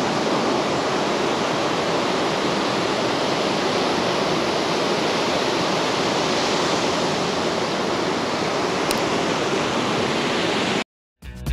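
Steady rushing noise of water that cuts off suddenly near the end, followed by the first notes of music.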